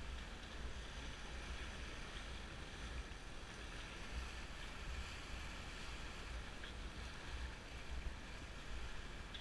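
Sailboat under way: water washing along the hull and wind buffeting the microphone, a steady low rumble under a hiss of water, with now and then a faint tick.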